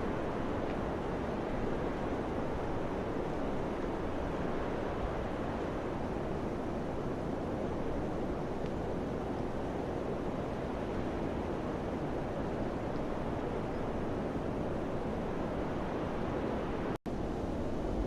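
Steady rushing of summer wind, an even noise without pauses, cutting out for a split second near the end.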